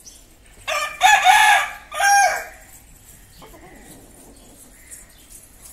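Rooster crowing once, a loud cock-a-doodle-doo of a short first note, a long held note and a falling last note, starting about a second in.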